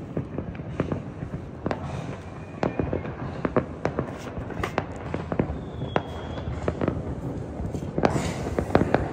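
New Year's Eve fireworks going off: an irregular string of bangs and pops, which grows denser about eight seconds in.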